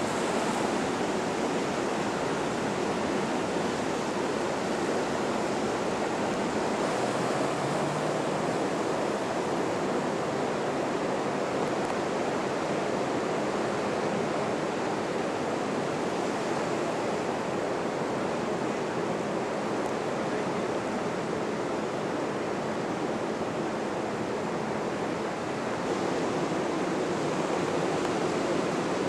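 Ocean surf breaking in a steady wash of noise, with wind; it grows a little louder near the end.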